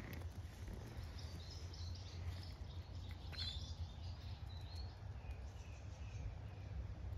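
Birds chirping in the background over a steady low rumble of outdoor ambience.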